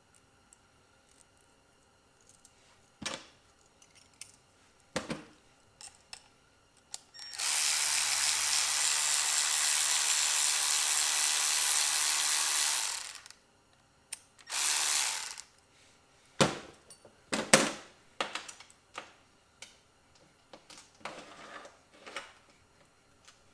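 A tool fitting replacement bolts into an aluminum mounting bracket, running steadily for about six seconds, then again briefly about a second later, among scattered sharp clicks and knocks of metal hardware being handled.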